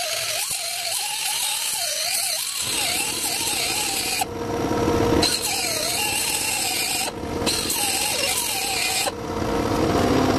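Angle grinder cutting steel, its motor note wavering as the disc bites in and eases off. The grinding noise breaks off briefly twice, when the disc lifts from the metal.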